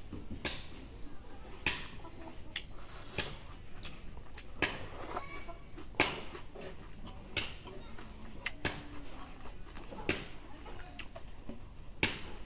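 Close-up eating sounds of a man chewing rice and curry: wet chewing with sharp lip smacks about every second and a half, the loudest about halfway through.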